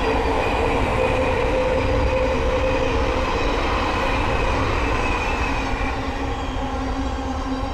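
Thameslink Class 700 electric multiple unit passing at speed: a loud steady rush of wheels on rail with held whining tones from the train, easing a little near the end.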